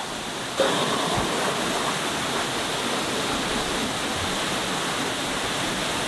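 Waterfall pouring into its plunge pool: a steady rush of falling water, stepping up in loudness about half a second in.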